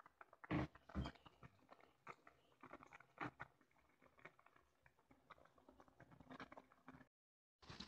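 Faint, irregular soft pops and clicks of instant noodles bubbling at a rolling boil in a pan, with two louder knocks about half a second and a second in.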